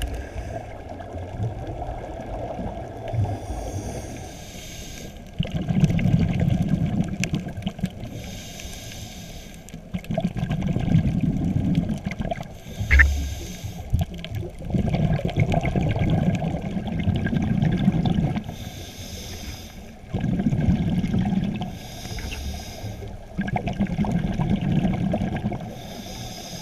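Scuba diver breathing through a regulator, heard underwater through a camera housing: a short hiss on each inhale, then a longer rush of exhaust bubbles on each exhale, repeating every four to five seconds. A single knock about halfway through.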